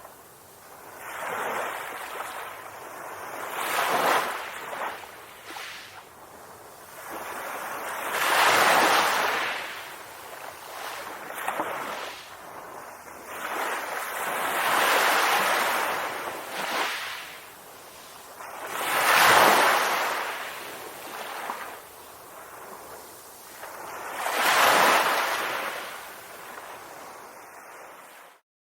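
Calm waves washing in, a rushing hiss that swells and fades about every five seconds. The sound cuts off suddenly near the end.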